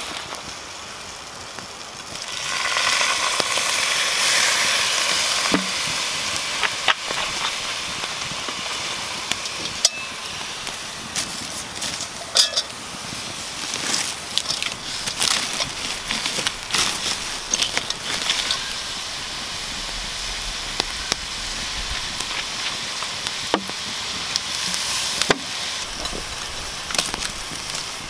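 Food frying in butter in a cast-iron pan over a campfire: a dense sizzle starts about two and a half seconds in as the pan goes onto the coals and keeps on, with scattered sharp clicks of stirring and of the pan being handled.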